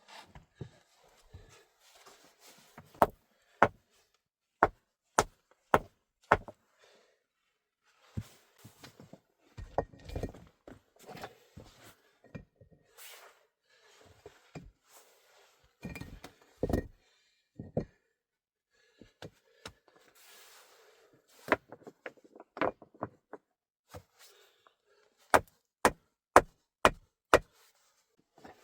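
Wood being struck hard again and again: runs of sharp knocks at about two a second, with pauses filled by softer knocks and handling noise.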